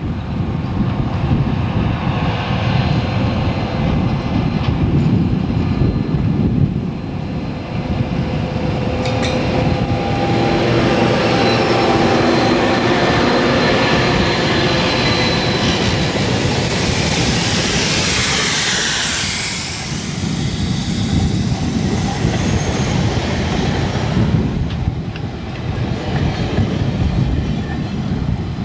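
Amtrak passenger train passing close by at speed, led by EMD F40PH diesel locomotives. The locomotives' engines swell and pass in the first half, then a long string of bilevel passenger cars rolls by with continuous loud wheel-on-rail noise.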